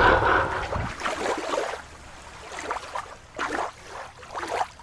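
Water splashing and sloshing in irregular bursts, loudest in the first second, as a toy sea animal is moved about in the water.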